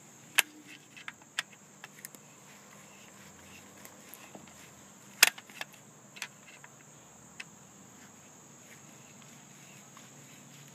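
A handful of short, sharp metallic clicks and taps from a long screwdriver working the screws out of a shop vac motor's housing. The loudest comes about five seconds in.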